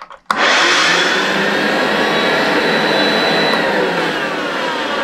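Vintage Hoover vacuum cleaner switched on with a click about a third of a second in, then running with a loud, steady rushing whoosh. It is running with its roller removed and a new bag fitted, and the owner thinks it sounds better this way and that the motor feels freer.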